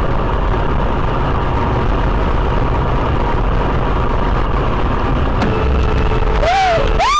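Steady road and engine noise inside a car driving on a highway. Near the end comes a short pitched sound that rises and falls, then another that begins rising.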